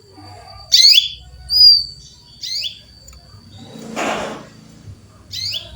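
Female canary calling with four sharp, downward-sweeping chirps spaced unevenly, one of them a clearer whistled note, over a faint steady high tone. A brief hiss comes about four seconds in.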